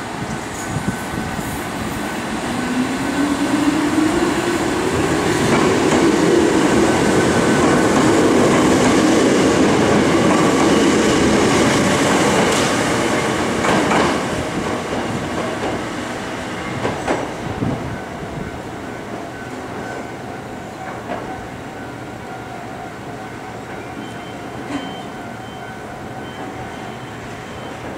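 Kotoden local electric train pulling away: its traction motor whine rises in pitch as it picks up speed. Wheels clack over rail joints a few times, and the sound then dies down as the train moves off.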